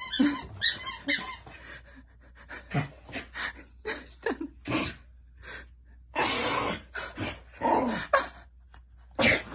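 A dog pushing and burrowing into a fabric dog bed on a wooden floor: squeaks in the first second, then short scuffs and a longer rustle of fabric dragging about six seconds in.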